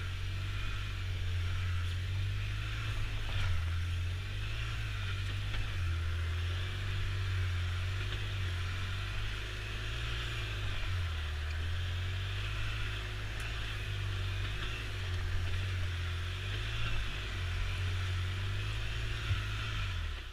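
Polaris Ranger 6x6 utility vehicle's engine running under way over rough, tussocky ground, heard from inside the cab: a steady low drone that swells and eases every second or two.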